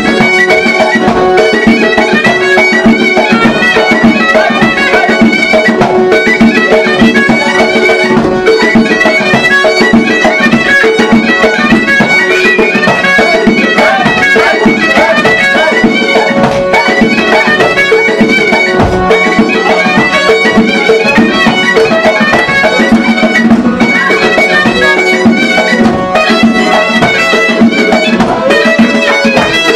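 Traditional folk dance music, with an accordion among the instruments: a fast, ornamented melody over steady held notes, keeping up without a break.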